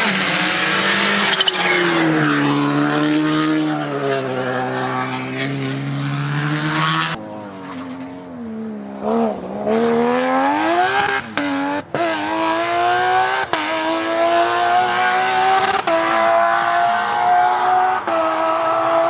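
Rally car engines at full attack: a car's engine revving up and down, then after an abrupt change about seven seconds in, a rally car accelerating hard through the gears, its pitch climbing with a short dip at each upshift.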